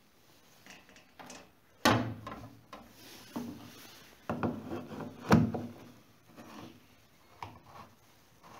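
Handling noise at a tractor's engine oil filler: a run of knocks and rubbing as the dipstick and plastic filler cap are worked by a gloved hand, with two louder clunks about two seconds and five and a half seconds in.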